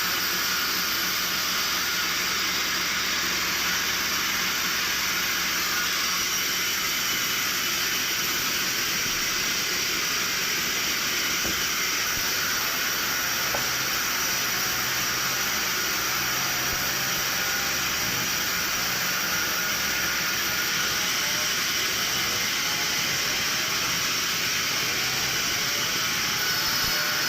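Sawmill machinery running with a steady, even hiss, without distinct cuts or strokes.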